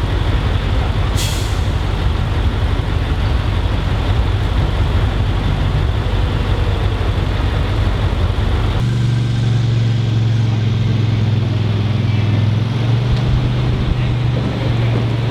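Heavy truck engines running with a deep drone, with a short air-brake hiss about a second in. About nine seconds in the sound changes abruptly to a single steady, deep engine drone.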